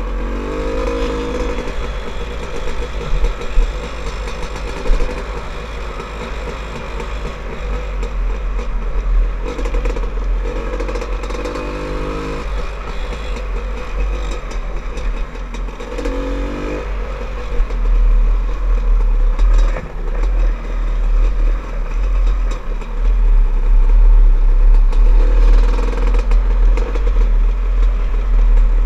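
Dirt bike engine running under way, revving up several times, over heavy wind rumble on the helmet-mounted microphone that grows louder in the second half.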